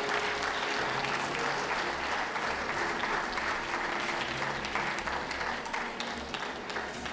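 Audience applauding a placing announcement at a dog show, a steady patter of many hands that eases off slightly toward the end.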